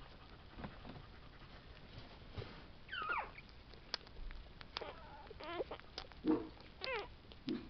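Very young Tibetan terrier puppies squeaking and whimpering while nursing: a few short squeals that slide down in pitch, about three seconds in, around five seconds and near the end, with lower grunts and small clicks between them.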